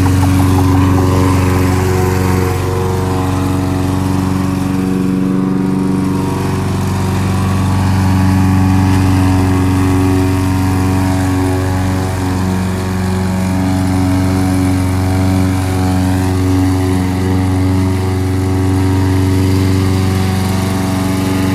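Single-cylinder engine of a gas walk-behind lawn mower running steadily at mowing speed while it is pushed across grass.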